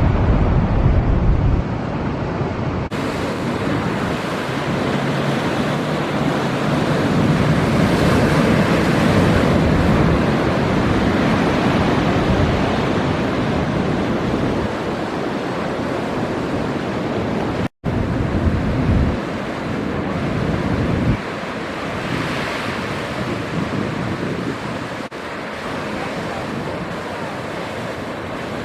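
Heavy surf breaking and rushing, with strong wind buffeting the microphone. The sound drops out briefly just past halfway.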